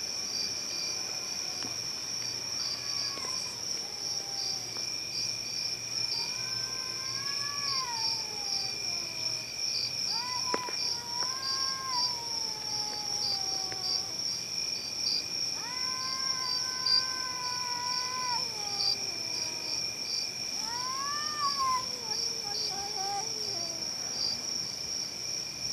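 Cats yowling: a string of long, drawn-out wavering howls, each a few seconds long and rising then falling in pitch, over a steady high trill.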